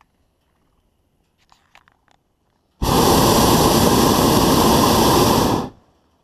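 Hot air balloon's propane burner firing in one blast of about three seconds: a loud roar that starts suddenly about three seconds in and cuts off sharply.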